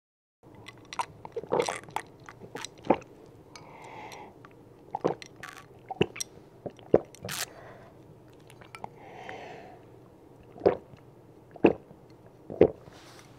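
An orangutan bites and chews on a plastic bottle, making irregular crunches and crackles of the plastic with scattered sharp clicks.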